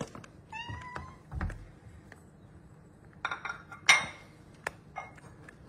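A kitten meows once. A few seconds later a plate of cat food is set down on a tiled floor with a cluster of clinks, followed by a few lighter clicks.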